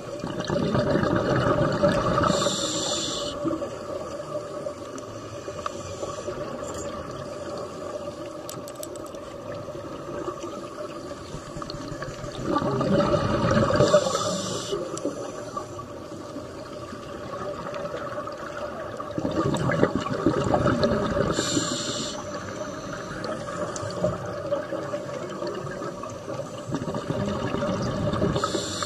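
Scuba diver breathing through a regulator underwater: four breath cycles, each a rush of bubbling exhaled air followed by a short hiss, roughly every six to seven seconds.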